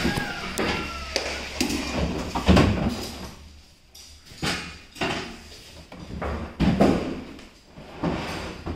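A series of irregular knocks and thuds with some clatter, the loudest about two and a half seconds in and again near the seven-second mark.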